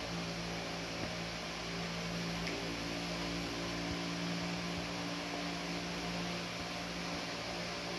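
Steady hum and hiss of a household fan or appliance running, with an unchanging low tone underneath.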